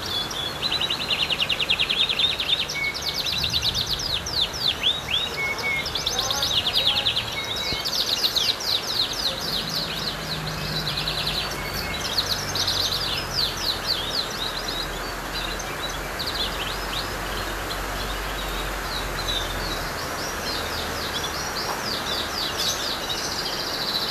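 Canary-type songbird singing phrase after phrase of fast trills and chirps, with short breaks between phrases, over a steady hiss of background noise.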